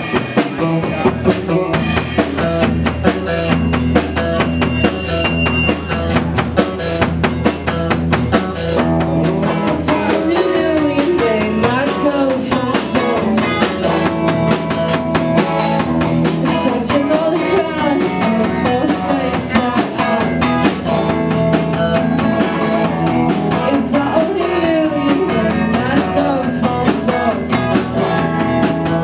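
A live rock band playing: electric guitars and a drum kit, with a girl's lead vocal coming in about ten seconds in.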